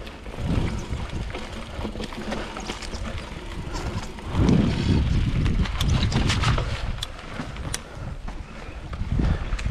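Mountain bike riding a dirt singletrack: tyres rolling and wind rumbling on the microphone, with scattered short clicks and rattles from the bike, louder from about halfway through.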